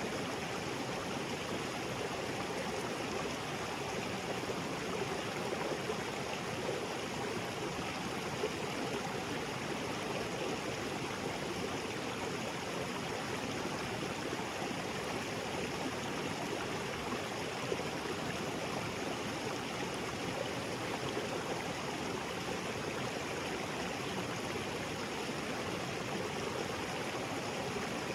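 Small waterfall spilling into a rocky creek, a steady rush of falling and flowing water with a little gurgling.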